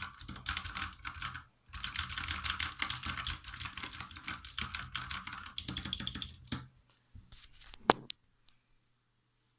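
Fast typing on a Redragon Usas mechanical keyboard with Outemu Blue clicky switches, a dense clatter of key clicks with a brief pause about a second and a half in. The typing stops about two-thirds of the way through, followed by a few scattered clicks and one sharp, loud click.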